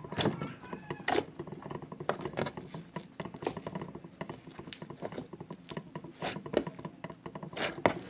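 Hands squeezing and working a foamy white slime, making irregular wet clicks and small pops.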